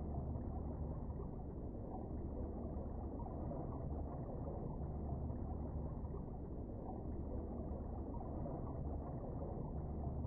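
Steady, muffled low rumble of underwater ambience picked up by a submerged camera in its waterproof housing, with no distinct events.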